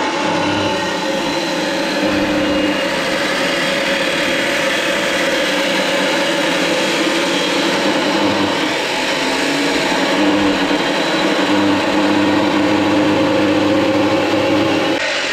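A power cutting tool running steadily under load, its motor pitch wavering slightly as it cuts the ramp support to length.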